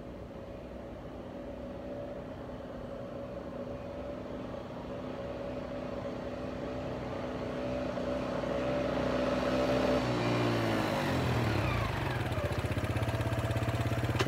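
1987 ATV's small engine approaching at a steady pitch, growing steadily louder. About ten seconds in the engine note drops as the rider slows. It settles to a lower, steady idle as the ATV stops close by.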